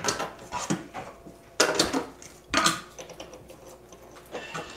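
A stainless steel blender jug being set into a countertop blender-cooker's base and its lid fitted: a series of short clattering knocks and clicks of metal and plastic, with no motor running yet.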